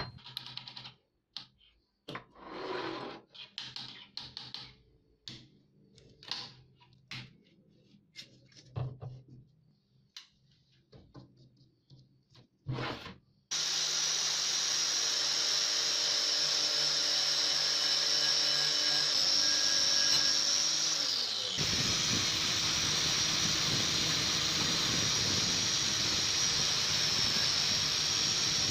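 Angle grinder with a wire cup brush running steadily against a rusty steel pruner part clamped in a vise, stripping the rust; it starts about halfway through and its pitch sags once near two-thirds of the way. Before it starts there are scattered short knocks and clicks as the part is handled and set in the vise.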